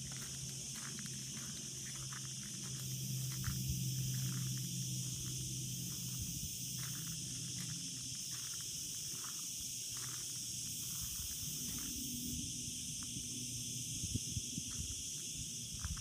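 Cicadas buzzing steadily in a continuous chorus. Under it is a low, steady hum, the "ummm", for about the first half. A few footsteps crunch near the end.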